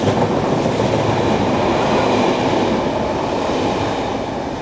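Double-deck passenger coaches of the KTT through train rushing past at speed: a loud, steady rush of wheel-on-rail noise that eases slightly toward the end.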